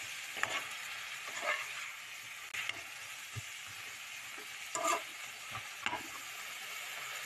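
Shrimp and string beans sizzling in a frying pan while a metal spatula stirs them, with a steady hiss and a few scrapes and knocks of the spatula against the pan.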